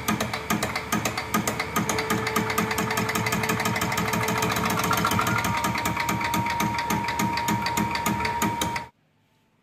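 Diesel injection pump test bench running with a single-cylinder PF-type fuel injection pump, a rapid, even ticking over a steady whine. It cuts off suddenly near the end.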